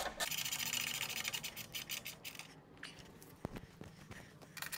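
Hand ratchet clicking quickly as skid plate bolts are run in and tightened, for about two seconds, then quieter handling with a light knock near the end.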